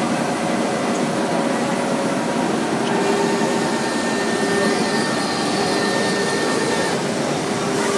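CNC wood router running as it machines a wooden door panel: a steady whirring rush with a steady whine from the spindle, which grows stronger about three seconds in.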